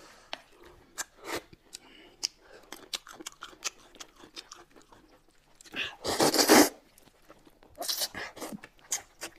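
Close-miked eating sounds: chewing with many small wet clicks and smacks, then a loud slurp of noodles about six seconds in, followed by a second, shorter burst of slurping a couple of seconds later.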